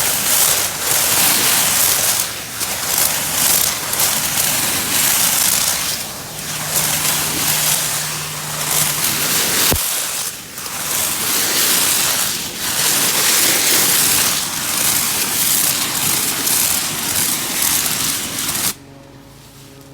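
Pressure washer with a zero-degree (red) tip blasting thistles: a loud spray that rises and dips as the jet cuts into the plants. Near the end the spray stops suddenly, leaving the pressure washer's motor humming steadily.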